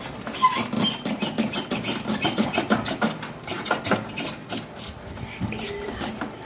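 Packaging rubbing and scraping in a quick run of strokes, several a second, as an item is worked out of a tight-fitting box; the strokes thin out and grow fainter in the last couple of seconds.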